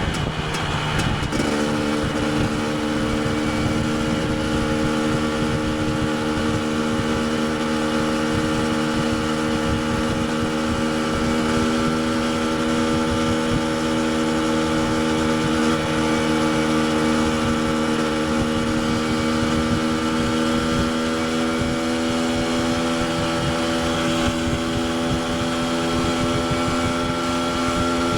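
KTM 250 EXC TPI's single-cylinder two-stroke engine under way. Its note shifts in the first second or so, then holds a nearly steady pitch that creeps slowly upward.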